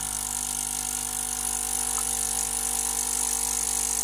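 Nespresso CitiZ coffee machine's vibration pump running steadily, pushing water through the brewing unit and out of the spout. It makes a steady hum over a high hiss.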